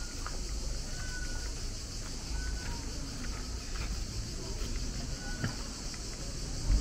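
Outdoor street ambience: a steady high buzz of cicadas, a few short bird chirps, and a low rumble of wind on the microphone.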